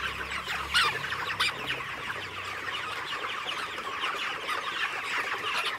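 A large flock of broiler chickens calling all at once: a dense, continuous chatter of short peeps and clucks, with a few louder calls about a second in.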